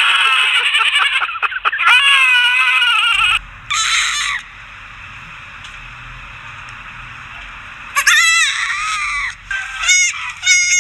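Goats bleating loudly in high, wavering, scream-like calls, several overlapping for the first three seconds. After a lull of about four seconds, more calls come, shorter ones near the end.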